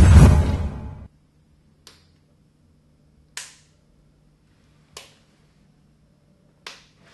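A deep boom that swells and dies away within the first second, then four sharp single clicks about a second and a half apart.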